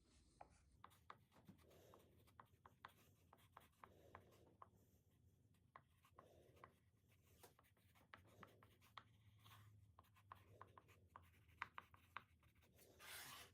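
Faint scratching and rubbing with many small scattered clicks, with a brief hiss near the end.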